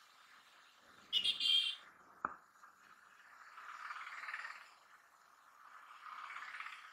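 Muffled traffic and motorcycle running noise on a city street, with a vehicle horn honking twice in quick succession about a second in and a sharp click just after.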